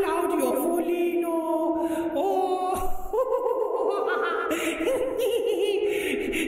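Voices singing a cappella, holding long notes and sliding between them.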